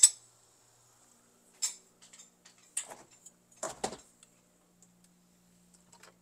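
Kitchen utensils being handled: a few separate light clicks and knocks, such as a metal ladle being set down on a spoon rest. A faint low hum runs underneath from about halfway through.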